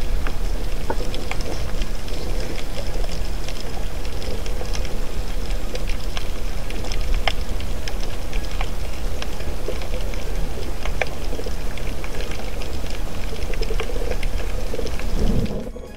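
Underwater sound picked up by a camera held below the surface: a steady low rumble of moving water with many scattered, sharp crackling clicks. It fades out shortly before the end.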